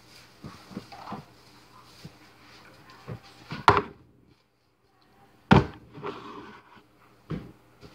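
Containers set down on a tabletop: a can of shaving cream and a plastic bottle of saline solution knocking onto the surface, with softer handling sounds. A few sharp knocks, the loudest about three and a half and five and a half seconds in, and another near the end.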